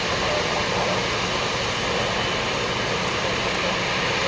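Steady noise of a jet airliner's engines, holding an even level throughout.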